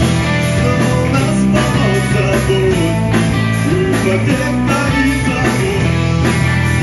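Live rock band playing: electric guitar, bass guitar and drums.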